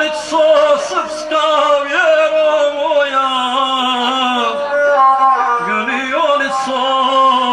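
A male folk epic singer (guslar) singing in long held, bending notes, accompanied by the gusle, the single-stringed bowed folk fiddle of the Balkans.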